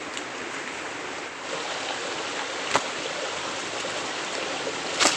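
Steady rushing outdoor background noise, with a light click about halfway through and another just before the end.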